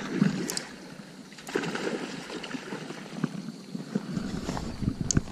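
Shallow river water sloshing against a gravel bank, with scattered clicks and crunches of stones. A low rumble comes in about four seconds in.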